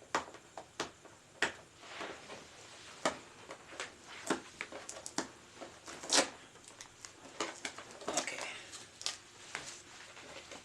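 Hands unpacking a four-piece taco holder from its box: irregular light clicks and taps with brief rustles of packaging.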